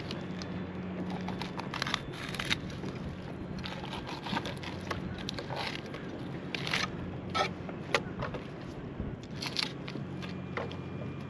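Fillet knife cutting mojarra fillets on a boat's cutting board, in irregular short scraping strokes as the blade works along the bones.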